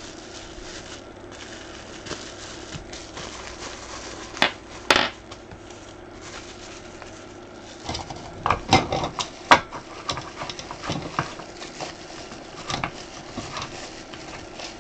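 Small clinks, taps and scrapes of a light bulb being handled and screwed into a scent-warmer lamp's socket: a couple of sharp clicks about four to five seconds in, and a busier run of clicks and knocks from about eight to ten seconds, with lighter ticks after.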